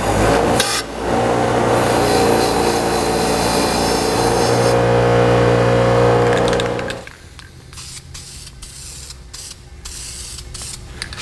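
Bench grinder running with a wire wheel brushing burrs off the sharp edges of a steel bracket, a steady hum with a harsh rasp. About seven seconds in it cuts off, and short hisses of an aerosol spray-paint can follow.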